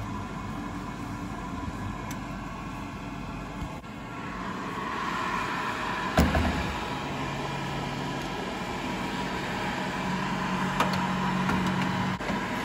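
Emeril Lagasse Power Air Fryer 360 XL running, its convection fan giving a steady whir that grows louder about four seconds in. A single sharp knock comes about six seconds in.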